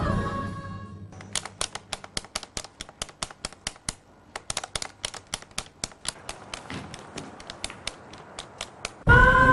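A steady run of sharp clicks, about five a second with a short break midway, like buttons being pressed rapidly on a small handheld device. Background music fades out just before the clicking and comes back in loudly near the end.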